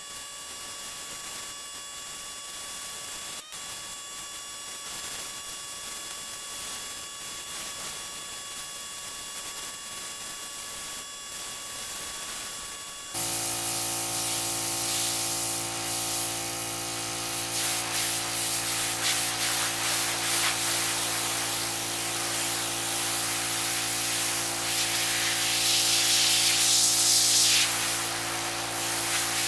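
Power Stroke 3200 PSI gas pressure washer spraying, a steady hiss of water. About 13 seconds in, the sound jumps louder and the engine's steady hum comes in under a stronger spray.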